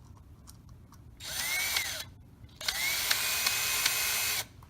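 Cordless drill running in two bursts: a short one that spins up and winds down, then a longer one held at steady speed, going through a mounting hole into metal.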